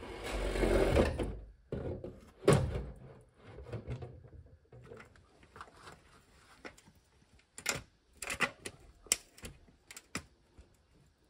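Stainless steel chimney pipe being worked onto a wall-mounted tee and support bracket: a brief rush of noise at the start, a thump about two and a half seconds in, then a scattering of sharp metal clicks and knocks as the section is pressed and turned into place.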